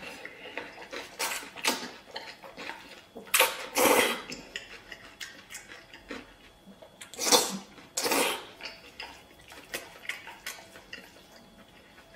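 Noodles being slurped from chopsticks in four short pulls, two pairs a few seconds apart, with chewing and chopsticks clicking against a stainless steel bowl.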